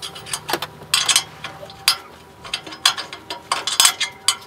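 Stainless steel folding fire pit being assembled: a string of irregular metallic clicks and clinks as its panels and grate are fitted into place.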